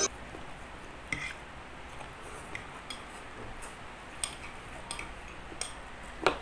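Metal forks clinking lightly against ceramic plates while spaghetti is eaten: scattered single clicks, the loudest near the end.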